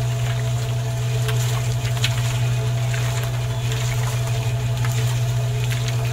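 Small electric motor of a miniature model drum mixer running with a steady low hum.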